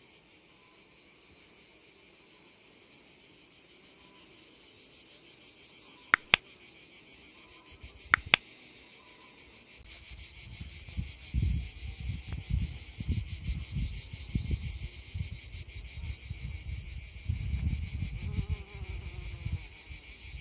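A steady, high-pitched chorus of insects with a fast pulsing texture. Two sharp double clicks come about a third of the way in, and from about halfway irregular low rumbles of wind buffet the microphone.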